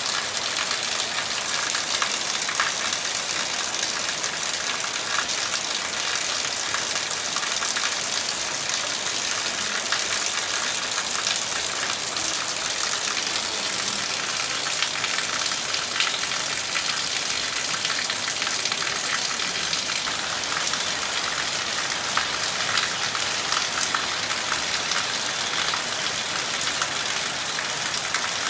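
Heavy rain falling steadily on trees and an open yard: an even hiss made of countless small drop impacts, with no thunder.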